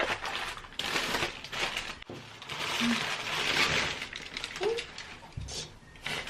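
Packaging rustling and crinkling as it is unwrapped, with small clicks and light knocks.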